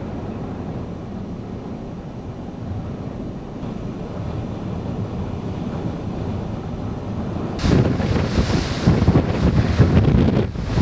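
Gale-force wind rushing steadily and buffeting the microphone, then a stronger gust hits about eight seconds in and the buffeting turns suddenly loud and choppy.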